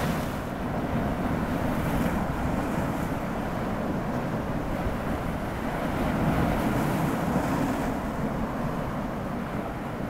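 Sea waves breaking and washing over shoreline rocks, a continuous surf rush, with wind buffeting the microphone. The surf swells louder about two seconds in and again around six to seven seconds.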